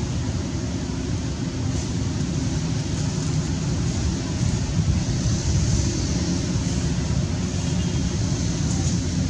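Steady low rumble with a lighter hiss above it: outdoor background noise, with no calls from the monkeys.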